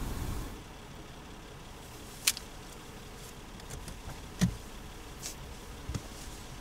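Quiet steady low hum inside a parked car, broken by a few sharp clicks and knocks; the loudest, with a low thump, comes about four and a half seconds in.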